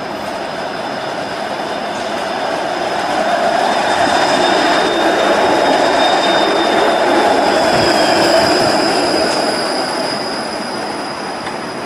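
A Bombardier Flexity Outlook low-floor streetcar rolling past on its rails. The sound builds as it approaches, is loudest as it goes by, and fades as it moves away. Thin, steady high-pitched whines sit over the rolling noise, one of them dropping slightly in pitch as the car passes.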